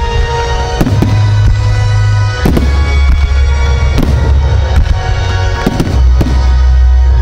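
Fireworks going off in sharp bangs about once a second over loud music with deep, sustained bass.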